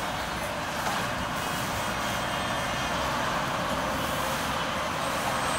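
Radio-controlled jet model plane in flight, its engine heard as a steady rushing hiss with no clear pitch.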